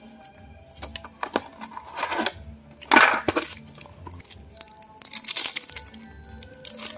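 Blind-box packaging being torn open and rustled by hand in several bursts, the loudest about three seconds in, with small clicks of handling, over soft background music.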